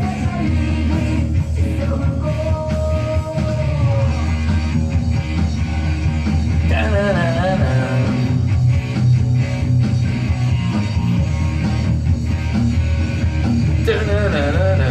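A rock song with a singer and a full band playing.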